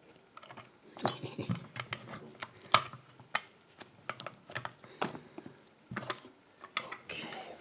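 Irregular small metallic clicks and taps as the just-picked pin-tumbler padlock and its tools are handled to take the lock apart.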